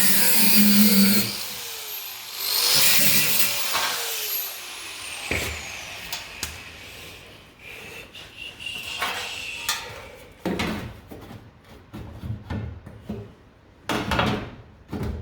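Angle grinder cutting away rusted sheet steel on the car body in two loud bursts, then its whine falling as the disc winds down. Scattered knocks and clatter of metal being handled follow.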